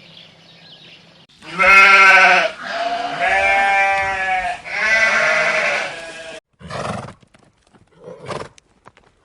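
Sheep bleating: three long, wavering calls one after another, followed by two short, fainter sounds near the end.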